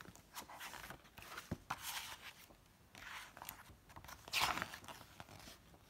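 Paper rustling and crinkling as a book page is handled and turned, with the loudest rustle about four and a half seconds in.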